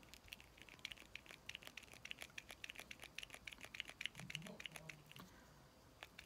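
Faint, rapid plastic clicking of a small pump spray bottle's nozzle being pressed over and over, pausing briefly near the end.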